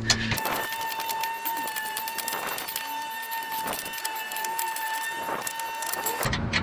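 Rapid ratchet clicks and metal rattles from work on the bolts under a car, over a steady high-pitched whine. The sound cuts in and out abruptly, as in a fast-forwarded stretch of the work.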